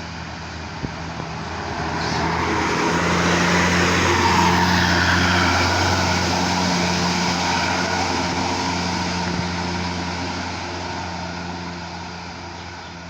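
Tour bus's diesel engine running as it drives past, growing louder to a peak about four seconds in and then fading away.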